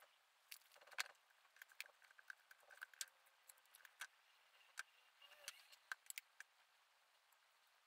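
Near silence broken by faint, scattered small clicks and ticks, the sharpest about a second in, dying away in the last second or so.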